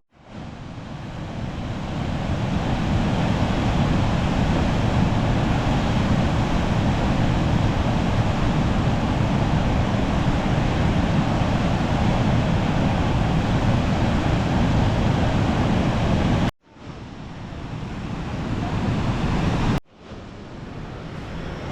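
Waterfall pouring, a loud steady rush of falling water. It cuts out abruptly twice near the end and swells back in each time.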